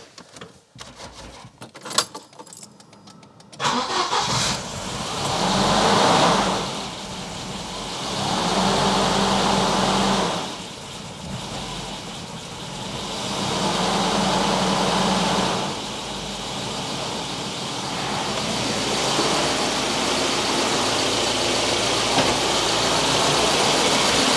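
Rebuilt Volvo B230FK four-cylinder turbo engine starting up about three and a half seconds in. Its revs rise and fall several times on their own before settling toward a steadier idle, which the owner puts down to the idle air control valve hunting for idle.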